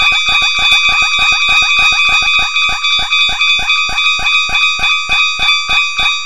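Japanese railroad crossing warning bell ringing 'kan-kan' rapidly, several strikes a second, each strike a ringing metallic tone, slowing a little toward the end.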